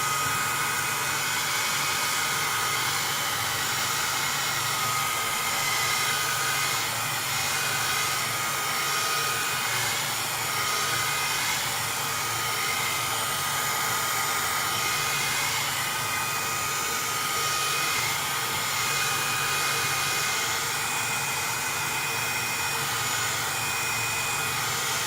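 Heat gun blowing steadily: a rush of hot air with a thin high motor whine over it, heating a games-console motherboard in a reflow repair.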